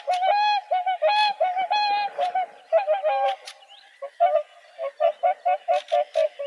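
Swans honking: a run of repeated calls, longer notes in the first half, then quicker, clipped notes in the second half.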